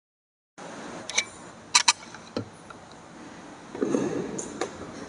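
A brief dropout to silence, then a hall's quiet room tone with several sharp clicks and clinks and a duller knock near the end.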